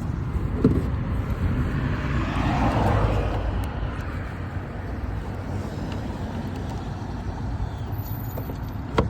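A road vehicle passing, its noise swelling and fading over a couple of seconds, over a steady low rumble. There is a knock about a second in and a sharp click near the end.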